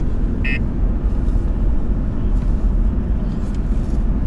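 Steady low road and engine rumble inside the cabin of a moving car. About half a second in comes one short electronic beep, the last of a run of beeps spaced about half a second apart.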